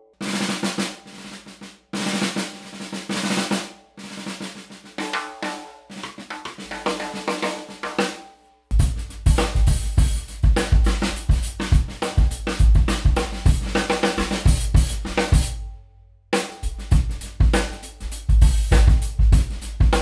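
Doc Sweeney "Crescendo" 14x8 parota stave snare drum played with sticks. For about the first eight and a half seconds the snare plays alone in short phrases with a ringing tone. Then a groove with bass drum and cymbal joins in, breaking off briefly near the end.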